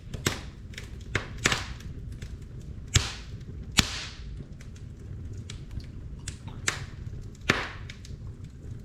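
Wood fire burning in a fireplace, crackling with sharp irregular pops, a few of them loud, over a steady low rumble.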